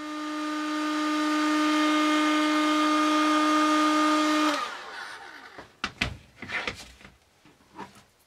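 Electric heat gun running: a steady motor hum with a rush of air, shrinking heat-shrink tubing over the soldered wire joints of a microwave turntable motor. It switches off a little over four seconds in, and the hum falls in pitch as the fan spins down. A few clicks and taps of handling follow.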